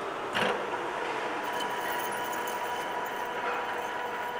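Metal lathe engaged with a knock about half a second in, then its spindle and gear train running with a steady whine while a threading tool cuts a 14-threads-per-inch pipe thread on a stainless steel tube, with light ticking over it.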